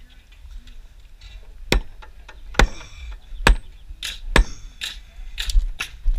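A run of sharp knocks, about one a second, with lighter clicks and taps between them, as from hand-tool work.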